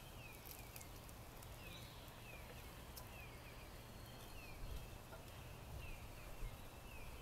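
A small bird calling repeatedly in short, falling chirps, faint, over a low steady rumble.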